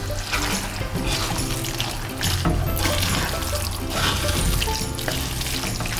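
Background music over wet stirring: a wooden spatula turning raw chicken pieces and spice paste in a clay pot, a moist, irregular squelching and scraping.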